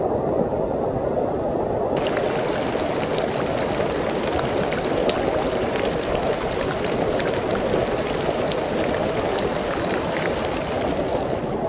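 Sea waves rushing and breaking on the shore in heavy rain and strong wind: a steady rush of water, with many small sharp ticks of rain joining in from about two seconds in.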